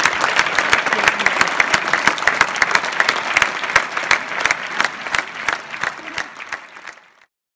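Audience applauding with dense, irregular clapping that fades out and stops near the end.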